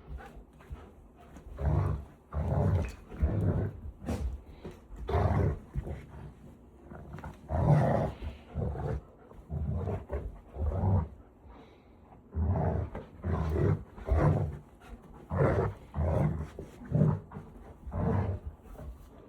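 Dogs play-growling during a tug-of-war over a toy: a string of short, low growls, about one a second.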